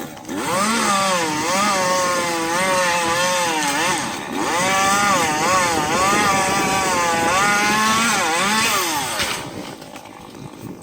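Echo CS-400 two-stroke chainsaw running at high revs and cutting, its pitch wavering under load. It eases off briefly about four seconds in, picks up again, and drops away about nine seconds in.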